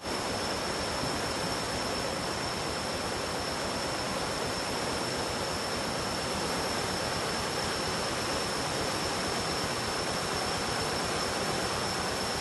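Storm floodwater rushing across a street: a steady, even rush of water, with a constant thin high-pitched tone above it.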